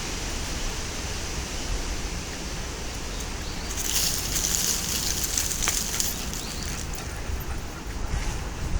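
Wind blowing through forest trees, the leaves rustling; the rustle swells in a gust about halfway through, over a low rumble of wind on the microphone.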